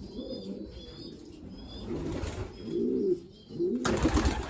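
Racing pigeons cooing in the loft: several low, rolling coos, one after another. Near the end comes a brief, louder rustling burst.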